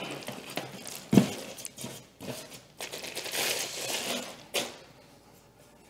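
Clear plastic wrapping rustling and crinkling as a heavy statue base is lifted out of a styrofoam packing tray, with a single loud knock about a second in.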